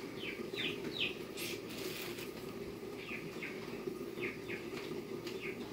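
Bird chirping: short, high calls that drop in pitch. Three come in the first second, then pairs about three and four and a half seconds in, and one more near the end, over a steady background hiss.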